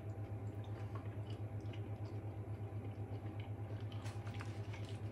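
A man chewing a mouthful of loaded fries, with faint wet mouth sounds and a few light clicks near the end, over a steady low hum.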